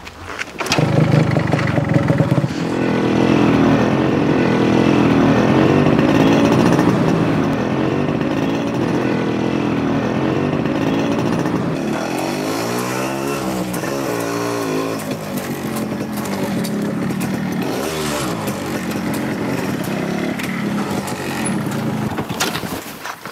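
Yamaha two-stroke motorcycle engine coming to life about a second in, then running steadily. Between about 12 and 15 seconds in, its pitch dips and rises again as it is revved and ridden off.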